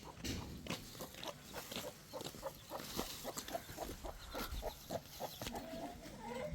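Farm animals, with a quick run of short clicking sounds, several a second, and brief calls among them.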